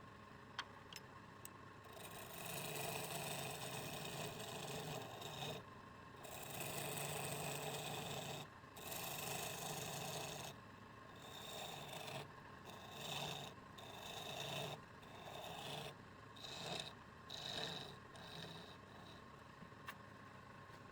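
Wood being cut or sanded on a lathe: a scraping rasp in bursts, two long passes, then a run of shorter strokes about a second apart.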